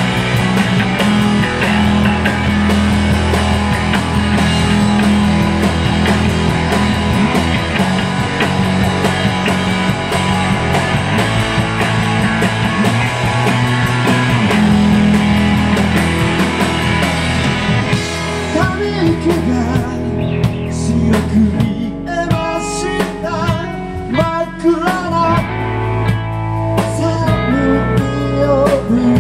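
Live rock band playing electric guitars and drum kit. About two-thirds of the way through, the full band drops back to a sparser passage with bending, wavering melodic lines. The full band returns near the end.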